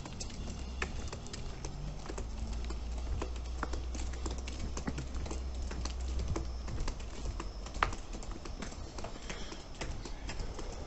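Footsteps of someone walking along a dirt and gravel path, an irregular series of steps with one sharper knock about two-thirds of the way through, over a steady low rumble.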